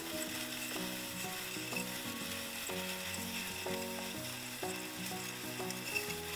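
Steady hiss of a shower running behind a closed bathroom door, under background music of a simple melody of short notes.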